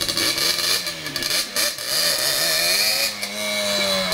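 Yamaha Banshee ATV's two-stroke twin engine revving, its pitch rising and falling unevenly, then holding a steadier note near the end.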